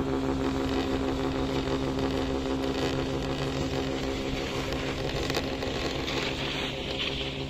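Steady mechanical hum of a running chairlift heard from the chair, a constant low drone with a single click about five seconds in.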